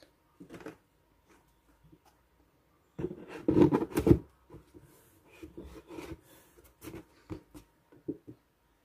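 Lid of a kraft cardboard box being fitted on and pressed down by hand: a loud scraping rub about three seconds in, followed by lighter rubs and taps on the cardboard.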